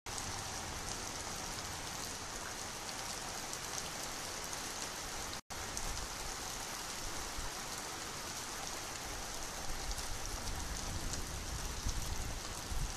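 Light rain falling steadily, an even patter with scattered ticks of single drops. The sound cuts out for an instant about five and a half seconds in.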